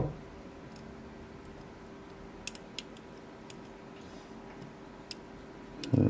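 Sparse, faint metallic clicks and ticks from a dimple pick working the pin-in-pin stack of a Mul-T-Lock C-13 padlock under tension, with a dull knock of the tools against the lock at the start and again near the end.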